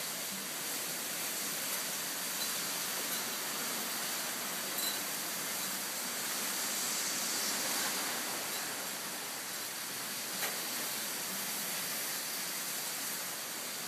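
Strong gusty wind blowing, a steady rushing hiss that swells a little around the middle, with a couple of faint ticks.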